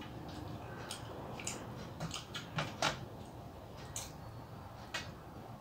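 Close-up eating sounds: scattered wet mouth clicks and smacks while food eaten by hand is chewed, the sharpest few coming between two and three seconds in, over a steady faint hiss.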